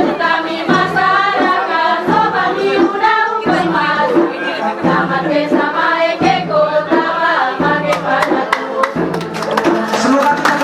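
A song with singing voices over music, with a repeating low beat; sharp claps come in near the end.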